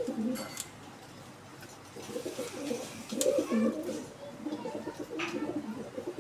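Domestic fancy pigeons cooing, low throaty coos coming in runs about two seconds in and again near the end, with a few short sharp sounds in between.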